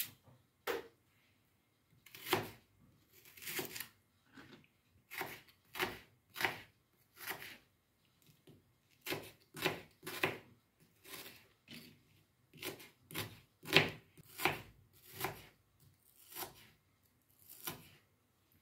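Kitchen knife slicing a peeled onion on a cutting board: a series of short cuts, each ending in a tap of the blade on the board, at an uneven pace of about one or two a second.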